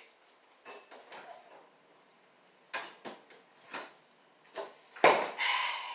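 Scattered knocks and clatters of kitchen handling, a few separate short sounds, then a louder rubbing and rustling near the end as something is handled close to the microphone.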